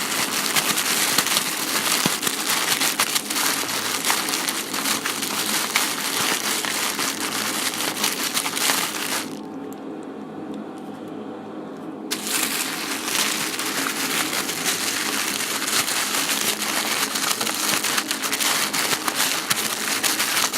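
Plastic being crumpled and squeezed by hand, a dense crinkling and crackling, pausing for about three seconds near the middle before resuming.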